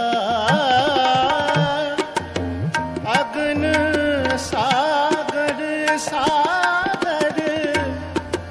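Sikh shabad kirtan: a voice sings a wavering, ornamented melodic run over a steady held drone, with tabla strokes throughout.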